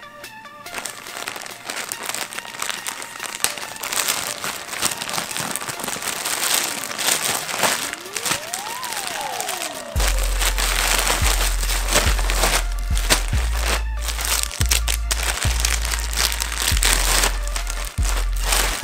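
Thin plastic mailer bag crinkling and crackling as it is torn open and handled, over electronic background music. A pitch sweep rises and falls in the music, then a heavy bass beat comes in about halfway through and is the loudest thing after that.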